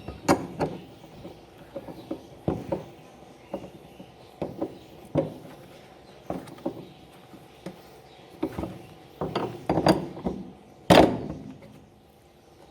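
Irregular metal clinks and knocks of a wrench at work tightening the pulley nut on a washing machine's drive shaft, with one louder knock near the end.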